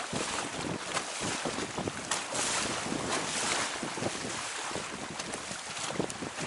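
Water rushing and splashing along the hull of a Hobie Tandem Island sailing kayak moving under sail, with repeated slaps of small waves and wind buffeting the microphone. The rush swells about two to four seconds in.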